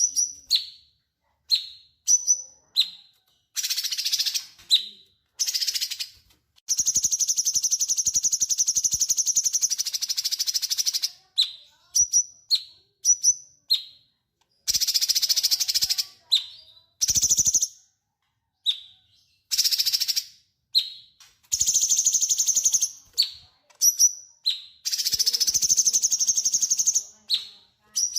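A cucak cungkok singing in full voice: short, falling whistled chirps repeated again and again, broken by long rapid rattling trills that each last one to four seconds, the longest about four seconds.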